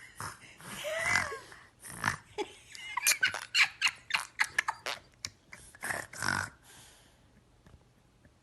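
A small child's squeals and short gliding vocal noises, then a quick run of sharp clicks in the middle, and two more short vocal bursts before it falls quiet near the end.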